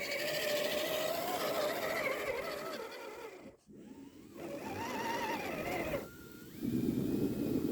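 Electric motor and gear whine of an RC crawler truck, its pitch wavering as the throttle changes. It cuts out briefly about halfway, comes back, and a louder rushing noise takes over near the end.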